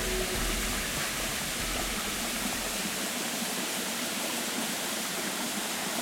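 Steady rush of a mountain stream in a gorge, an even hiss of water, its deeper rumble thinning out about halfway through.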